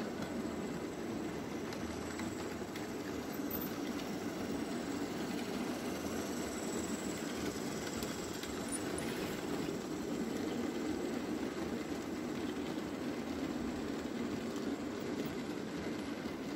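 Märklin H0 model freight train rolling past on its track: a steady rumble of the freight wagons' wheels on the rails.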